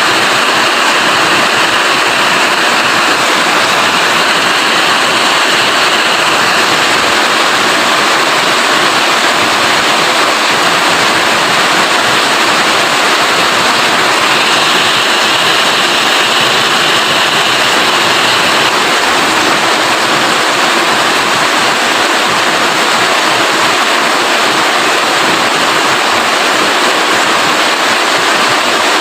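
Steady rain falling, a dense even hiss that grows slightly brighter for a few seconds near the start and again mid-way.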